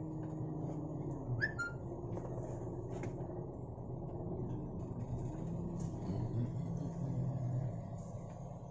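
Daihatsu van's engine running at low speed while the van is manoeuvred to park, heard from inside the cabin; its steady hum shifts about a second in. A brief high chirp about a second and a half in, and a few light clicks.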